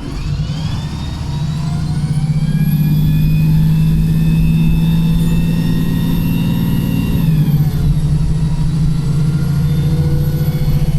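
Wright Pulsar single-deck bus heard from inside, its diesel engine pulling under load with a loud gearbox and differential whine. The whine rises in pitch as the bus accelerates, holds, then drops about seven seconds in and levels off.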